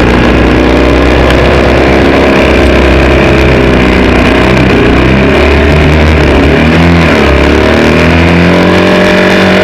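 Racing motorcycle engine heard on board under hard acceleration. Its pitch climbs and steps with each gear change, dips as it slows for a bend about seven seconds in, then rises again. Loud, over a rush of wind noise.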